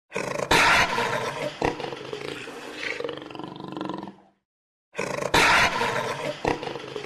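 A big cat's roar, played twice as the same recording with a short silence between: each starts loud and trails off over about four seconds.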